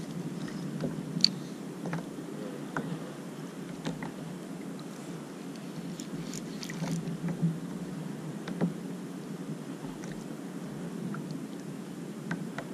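Sea water lapping against a plastic sit-on-top kayak hull, a steady low rush, with scattered small clicks and knocks.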